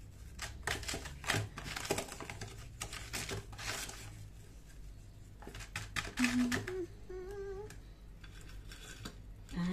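Granulated sugar rustling and scraping in a plastic tub as a fried pastry is rolled and pressed in it by hand, in quick scrapes over the first few seconds. About six seconds in, a woman hums briefly.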